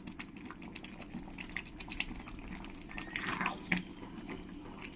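Thick spinach and jackfruit curry cooking in a pan with ghee just added: faint bubbling with scattered small pops and clicks, a few louder ones a little after three seconds in.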